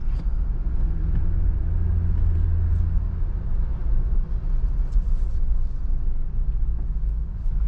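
Jeep's engine and tyre rumble heard from inside the cabin, driving slowly and easing off speed.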